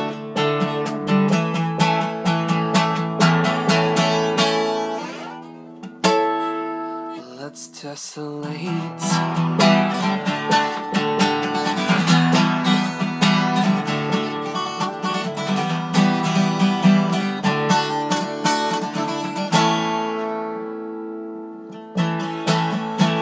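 Acoustic guitar strummed in a folk style, playing a song's closing instrumental. The strumming breaks off about five seconds in for a few single picked notes, picks up again, is let ring out around twenty seconds in, and one last strum comes near the end.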